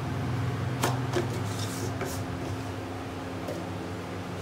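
A few light clicks and knocks of spice containers and utensils being handled as ground spices are added to the chopper bowl, over a steady low hum.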